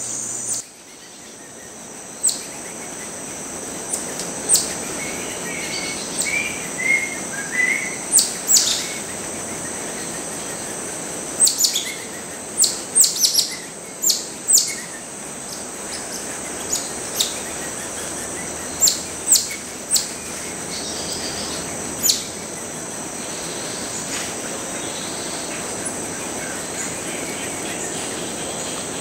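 Geoffroy's tamarins chirping: many short, very high-pitched calls that drop in pitch, some in quick clusters of two or three. A steady high insect drone runs under them.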